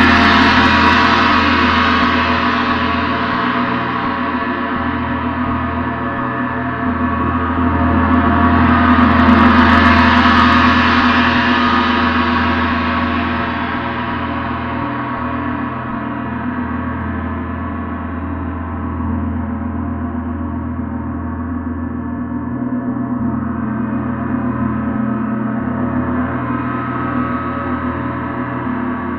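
Gong played continuously in a dense, sustained wash of overlapping tones. It swells louder and brighter about nine to ten seconds in, and more gently again near the end.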